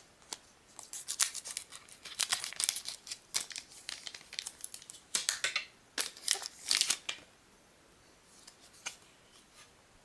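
Foil trading-card booster pack wrapper crinkling and being torn open by hand, in bursts of crackling and ripping for about the first seven seconds, then only a few faint rustles as the cards come out.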